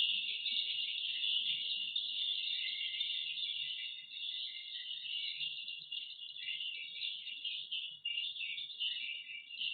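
Edible-nest swiftlets twittering: a dense, continuous high-pitched chirping from many birds.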